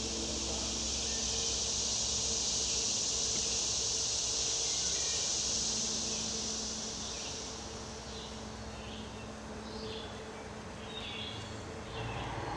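Insects buzzing: a steady high drone that fades away after about seven seconds, followed by scattered short high chirps.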